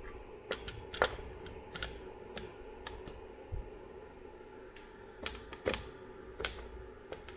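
Scattered light clicks and taps of metal parts as the inner cover of a Triumph four-speed motorcycle gearbox is fitted over its shafts, the sharpest about a second in and again near the six-second mark, over a faint steady hum.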